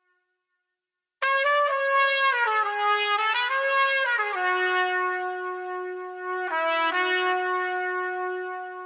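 Sampled solo trumpet playing a blues/jazz phrase: after a second of silence, a few moving notes, then one long, lower held note that fades out near the end.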